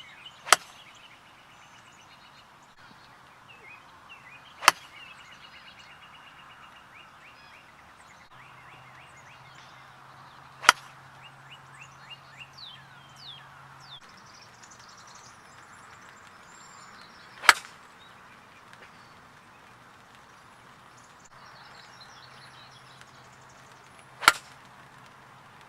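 Five sharp club-on-ball strikes, several seconds apart, from golf shots being hit. Birds chirp throughout.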